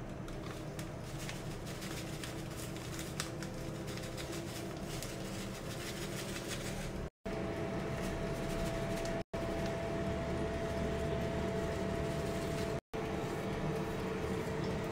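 Steady room hum like a fan running, with a few faint rustles and ticks of hands handling seasoned raw pork belly. The sound breaks off for an instant three times.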